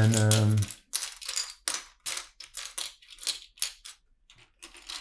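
Plastic LEGO bricks clicking and rattling as pieces are handled and picked through, a rapid irregular run of short clicks and rustles.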